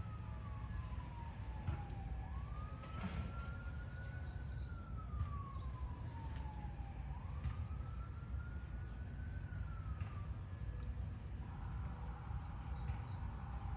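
Emergency-vehicle siren wailing, its pitch rising and falling slowly about every five seconds, over a steady low rumble, with a few short bird chirps. The wail stops about ten seconds in, and a steadier buzzing tone follows near the end.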